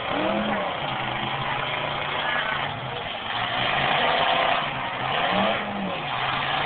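Demolition derby cars' engines running in the arena, one of them revving up about half a second in and again around five and a half seconds.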